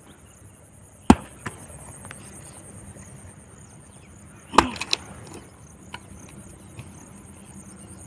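Axe chopping into a dry wooden log: one sharp blow about a second in with a smaller knock just after, then a second blow with a couple of quick follow-up knocks about halfway through.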